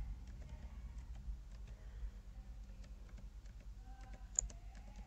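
Computer keyboard being typed on: a quick, irregular run of light key clicks, with one louder click about four seconds in.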